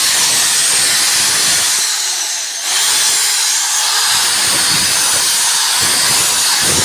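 Electric drill boring a hole into wood with a large bit, a steady hissy whir with a brief dip about two and a half seconds in as the bit is wiggled to open up the hole.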